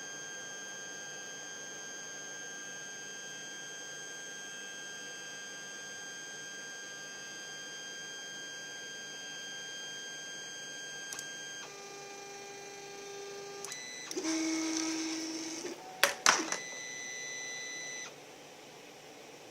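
3D printer's stepper motors whining in steady high tones, then shifting pitch through several short moves. About 14 s in comes a louder stretch of motor running, followed by two sharp clacks about 16 s in; the motor whine stops about 18 s in.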